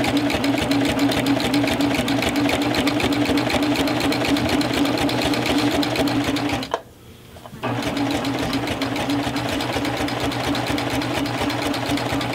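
Baby Lock 8-thread serger running at speed, stitching a 4-thread overlock through quilt layers and binding while its knife trims the raw edge: a fast, even mechanical stitching rattle. It stops for under a second about seven seconds in, then starts again.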